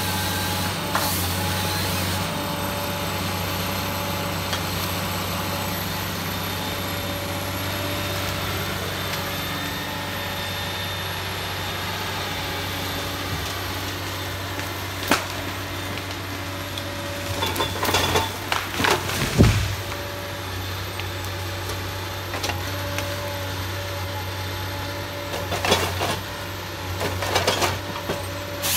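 John Deere wheeled timber harvester running steadily under load with a constant engine hum, as its harvester head grips and fells a pine. Cracking and crashing of wood and branches come in bursts about two-thirds of the way through and again near the end as the tree comes down.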